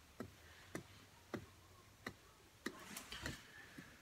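Faint, fairly regular ticking, about one tick every half second or so, over a quiet room hum.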